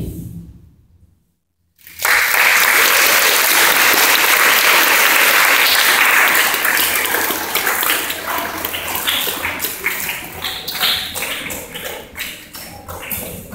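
Audience applause that starts after about a second of dead silence. It is full and even for about four seconds, then thins into scattered claps that die away near the end.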